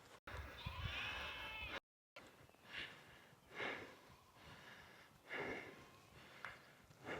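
Sheep bleating: one long wavering bleat that cuts off suddenly, then several shorter bleats a second or two apart.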